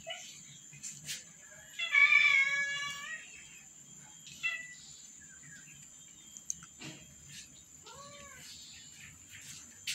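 Cat meowing: one loud drawn-out meow about two seconds in, a short call a little later, and a softer meow that rises and falls in pitch near the end.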